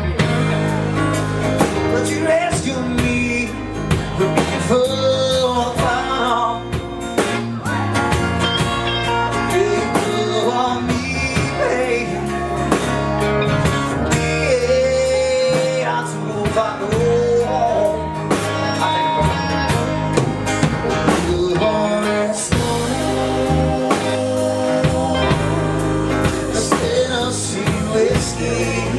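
Live country band playing a slow blues-tinged ballad, a lead guitar line sliding between notes over bass and drums.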